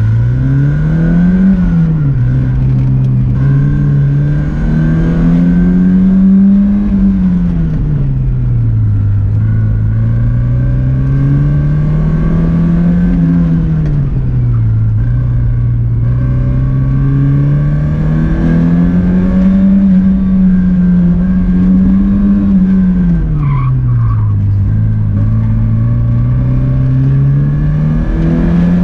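1986 Porsche 944's four-cylinder engine being driven hard through an autocross course, its revs climbing and dropping over and over as the car accelerates and brakes between corners.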